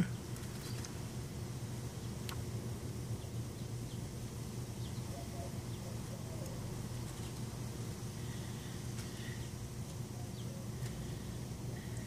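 Faint outdoor background: a steady low hum, with a few soft clicks and faint chirps now and then.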